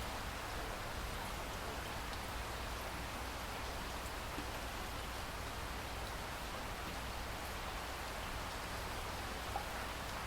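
Steady rain falling, an even hiss with a few separate drop ticks.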